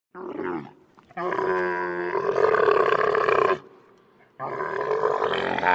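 Camel calling: a short call that falls in pitch, then a long call of about two and a half seconds that begins as a clear tone and turns rasping. A second long, rasping call begins about four seconds in.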